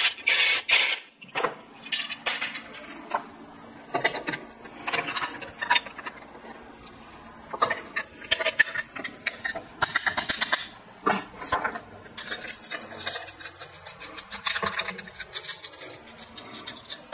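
Cordless impact driver running, stopping about a second in once the rivet nut is set. Then irregular metal clinks, scrapes and rattles as steel tools and the square steel tube are handled.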